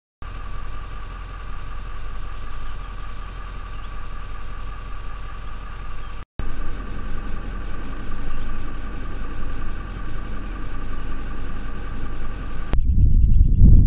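Vehicle engine idling steadily, a low hum with a thin steady whine on top. It breaks off for a moment about six seconds in, and near the end a louder, lower rumble takes over.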